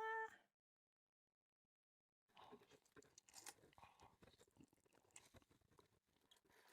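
Close-miked eating sounds: faint, crackly chewing and mouth noises, starting about two seconds in after a short pitched hum at the very start.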